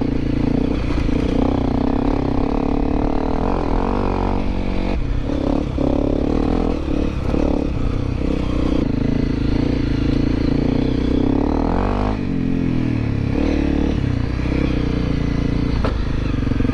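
Honda CRF250L Rally's single-cylinder four-stroke engine running as the bike is ridden, its pitch rising and falling with the throttle.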